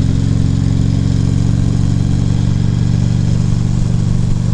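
Harley-Davidson Ultra Classic Limited's V-twin engine running at a steady pace while riding, its pitch holding nearly constant, with wind noise over the helmet microphone.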